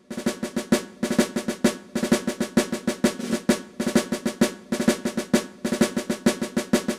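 Intro music of drums: rapid, rhythmic snare-drum strikes and rolls in repeated phrases, cutting off near the end.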